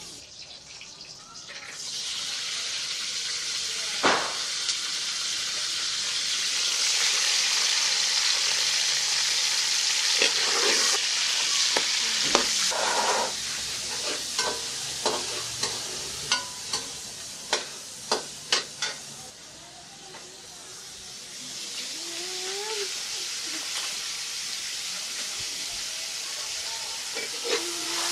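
Food frying in hot oil in an aluminium pot on a gas stove, stirred with a metal slotted spoon that clinks against the pot. The sizzle picks up about two seconds in, with a run of spoon clinks through the middle, and eases for a moment about two-thirds of the way through before picking up again.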